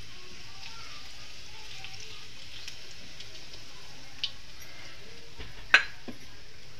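Cumin seeds sizzling in hot oil in a kadhai: a steady hiss with faint crackles as the seeds go in. A sharp click about four seconds in and a louder one near six seconds.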